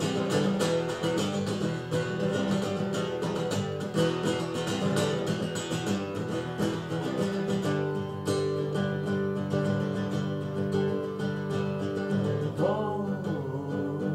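Acoustic guitar strumming chords through an instrumental passage of a song, with a voice sliding briefly in pitch near the end.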